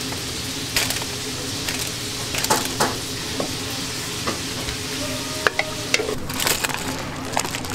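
Sauce-coated fried chicken being stirred and tossed with a spatula: wet, sticky stirring sounds and scattered light clicks over a steady hiss.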